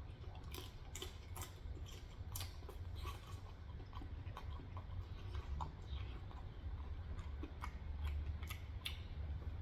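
Person chewing pan-fried potstickers, with irregular soft mouth clicks and smacks, several a second, over a steady low hum.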